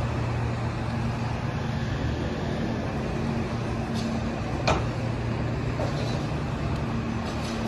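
Steady city street traffic noise with a constant low engine drone, and one short sharp knock about four and a half seconds in.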